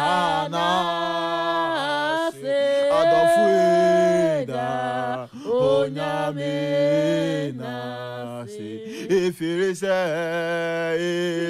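A man and a woman singing a gospel worship song unaccompanied, with long held notes that waver slightly in phrases of a second or two, separated by short breaths.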